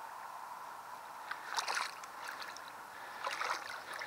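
Shallow water sloshing and splashing around a pike being released by hand at the water's edge. Two brief louder splashes, one about a second and a half in and another near the end.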